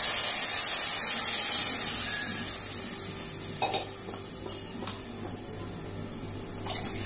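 Coconut milk, the first extract, poured into hot oil in a pressure cooker pan, hissing and sizzling loudly at first and dying down over the next few seconds. A few light clinks against the pot follow.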